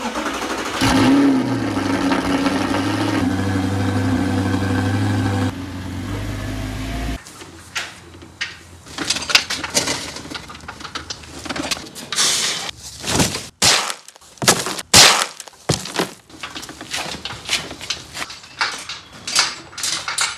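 Audi R8 engine starting with a brief rev flare and then idling steadily, dropping in level and cutting off about seven seconds in. After that comes a scattered run of knocks, clatters and rustling handling noises.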